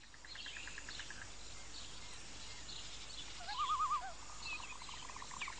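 Nature ambience of birds chirping over a steady hiss, with a loud warbling call about three and a half seconds in and a fast pulsing trill running on after it.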